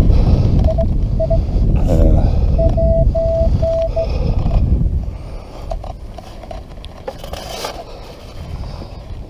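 Metal detector sounding its target tone as a series of short beeps at one pitch, twice in the first few seconds, over a low rumble. The beeps mark a strong, deep signal in the hole that the detectorist suspects is a can. After that, quieter scrapes and knocks of a sand scoop digging in loose sand.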